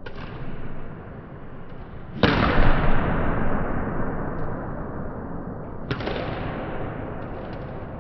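Badminton racket striking a shuttlecock three times: sharp cracks each trailed by long reverberation in the sports hall. The second, about two seconds in, is the loudest, and the third comes near six seconds.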